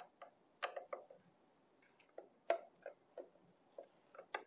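Screwdriver tip clicking and scraping on the mounting screws of a print head in the metal carriage of a UV flatbed printer as the screws are tightened: a dozen or so light, irregular clicks, the sharpest about two and a half seconds in.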